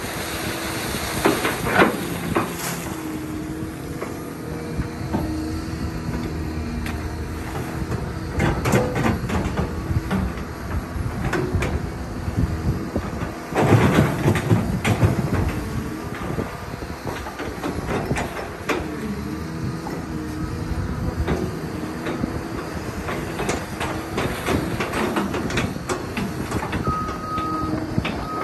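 A motor vehicle running with a steady, wavering hum and frequent knocks and rattles, louder about halfway through. A run of short, evenly spaced beeps starts near the end.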